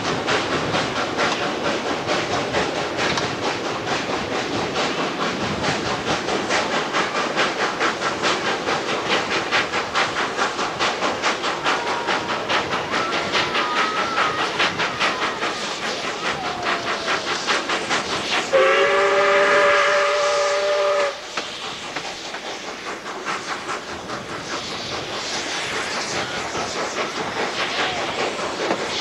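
Ex-South Australian Railways steam locomotive 520 hauling its train with a steady, fast, rhythmic beat. About nineteen seconds in, its whistle gives one loud, steady, chord-like blast lasting about two and a half seconds.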